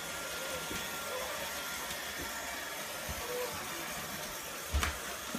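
Toy trains running around their track layout: a steady whirring hum of small motors and wheels, with one short low knock near the end.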